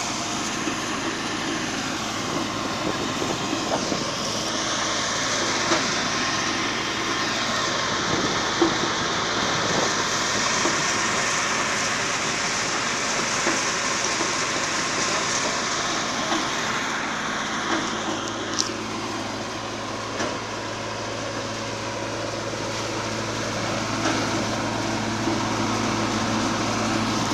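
Tractor-driven wheat thresher running steadily, its drum and fans churning as sheaves are fed in, with the Kubota mini tractor's engine working under load beneath it. A low hum grows stronger about two-thirds of the way through.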